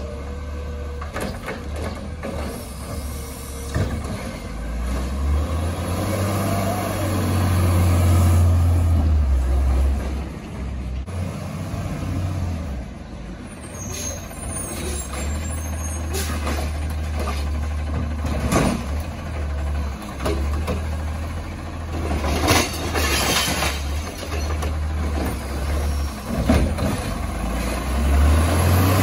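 Recycling garbage truck working its route: diesel engine running with revs up for a few seconds about a quarter of the way in and again near the end, air brakes hissing, and scattered sharp clanks and bangs.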